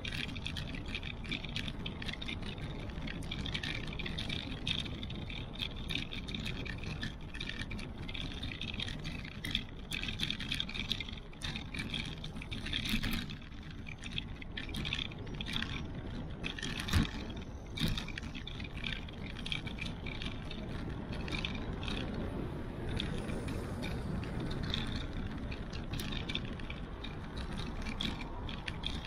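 Riding noise from a bicycle's camera: a steady rumble of wind and tyres, with frequent small clicks and rattles as the bike runs over the paving, and one sharper knock about 17 seconds in.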